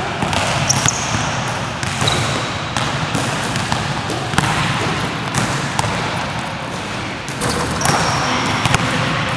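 Basketballs bouncing and knocking on a wooden-style indoor court and backboards, echoing around a large sports hall, with a few brief high squeaks about a second in and near the end.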